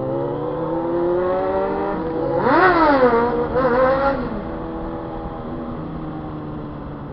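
Motorcycle engine revving: its pitch climbs slowly, then two sharp throttle blips about a second apart, each rising and falling quickly and the loudest part, before it drops back to a steady idle.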